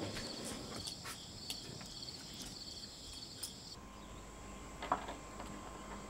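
Crickets chirping in quick repeated trills, a steady high-pitched pulsing that cuts off abruptly a little over halfway through, leaving a quieter background with a faint steady hum and a single soft click.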